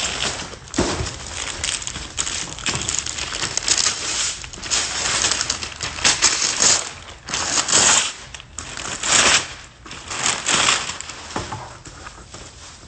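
Shiny gift-wrapping paper being torn and crumpled off a large flat package: a run of irregular rustling and ripping noises, loudest midway through.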